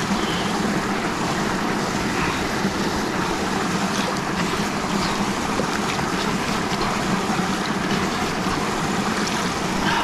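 Small waterfall on a stream splashing into a shallow pool: a steady rush of running water.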